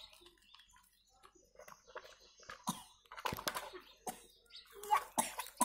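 Plastic toy construction vehicles handled and moved over sand: a near-quiet first second or so, then scattered light knocks, clicks and scrapes of plastic on plastic and sand.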